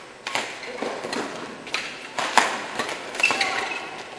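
Badminton doubles rally: several sharp racket hits on the shuttlecock, about one a second, the loudest about halfway through, with a brief squeak about three seconds in.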